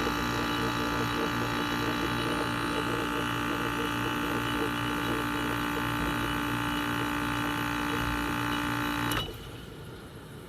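Frigidaire 5000 BTU window air conditioner running steadily, its compressor and fan droning with a low pulse, then shutting off abruptly with a click about nine seconds in, leaving only a faint low hum.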